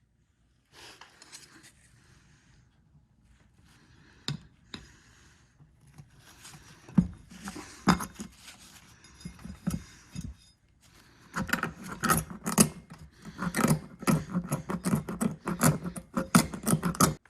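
Hand work on a stiff mower tire: rubber and metal tools scraping, rubbing and knocking against the wheel rim in an uneven run of clicks and clanks, busier and louder in the second half.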